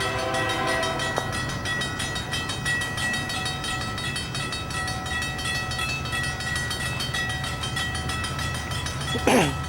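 Union Pacific train rolling past with a steady rumble and faint steady tones over it. Near the end there is one brief, loud sweeping sound.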